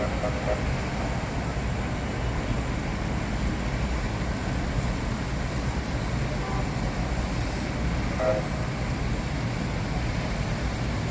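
Steady road and traffic noise, with a couple of short faint tones near the start and about eight seconds in.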